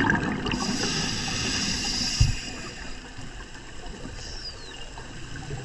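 A scuba diver's regulator breathing, heard underwater through the camera housing: the end of an exhaled bubble rumble, then a high hissing inhale lasting about two seconds. A low thump comes about two seconds in, and the rest is quieter water noise.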